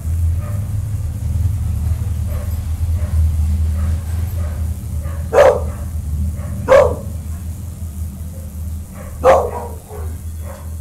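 Boxer dogs barking: three loud single barks, the first about five seconds in and the others a second or two apart, with fainter barks before them. A steady low rumble runs underneath.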